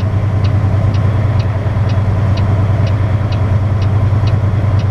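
Semi truck's diesel engine running steadily inside the cab as the truck rolls slowly, with a turn signal clicking about twice a second.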